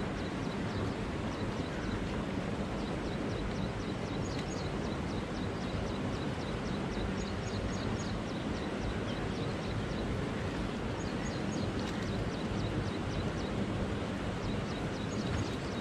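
Steady rush of river current flowing past a concrete weir, with a low rumble underneath and many faint, high, quick chirps scattered through it.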